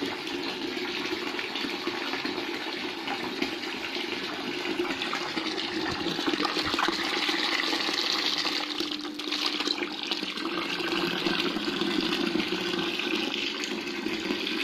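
Water jetting from a Kiyosaki PSP2400 submersible pump's hose and splashing back into a half-full plastic bucket, a steady rush and splash as the pump recirculates the water.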